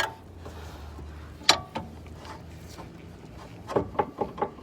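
Metal knocks from a 2006 Acura RSX front suspension part being rocked by hand against the chassis: one loud sharp clunk, then a quick run of lighter clicks near the end. The knocking comes from a missing rubber bushing that lets the part hit the chassis, the cause of the car's front-end clunk.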